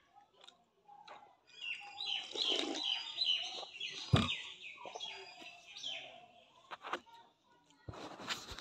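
Birds chirping in a quick run of short, falling calls, about three a second, for several seconds. A single sharp knock comes about four seconds in, and a rustle of handling near the end.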